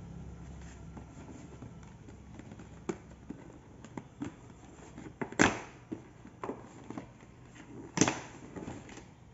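Paper gift bag rustling and crinkling as it is pulled open and rummaged through, with scattered sharp crackles, the loudest about five and a half and eight seconds in.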